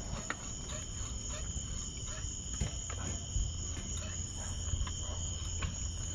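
Crickets chirping steadily in a continuous high trill over a low steady hum, with a few faint knocks of a tool against metal.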